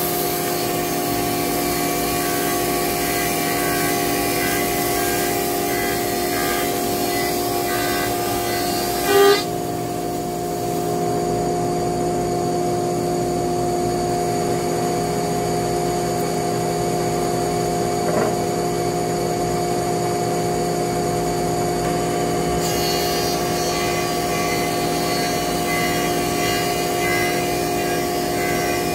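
Thickness planer and its dust collector running with a steady motor hum. The cutterhead is planing a wooden board for roughly the first third and again in the last quarter, with a short loud knock about a third of the way in.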